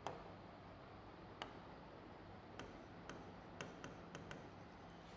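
Chalk ticking against a chalkboard while writing: about eight faint, sharp ticks at uneven intervals, coming closer together in the second half.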